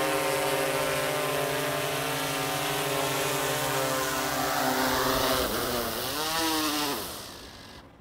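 DJI Matrice 210 quadcopter sitting on the ground with its four propellers spinning, a steady multi-tone hum with airy hiss. About six seconds in the pitch briefly rises and falls, then the motors are shut off after landing and wind down to quiet within the last second.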